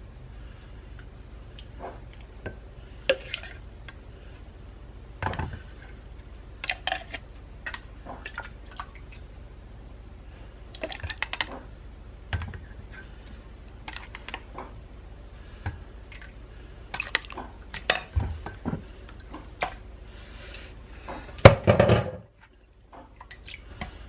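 Kitchen utensils and dishes clinking and knocking, with some pouring or ladling of liquid, as hot beef stew is dished up into an insulated cup. The clinks come in scattered bursts, with a louder clatter near the end.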